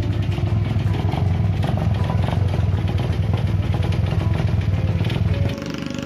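A motorcycle engine running steadily close by, then stopping abruptly about five and a half seconds in.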